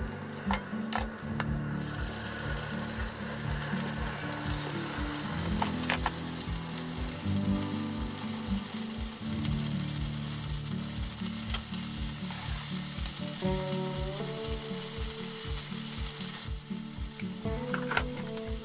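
Flour-dusted beef-and-vegetable rolls sizzling in hot oil in a frying pan. The sizzle starts about two seconds in as the rolls go into the pan, grows fuller a couple of seconds later, and cuts off near the end.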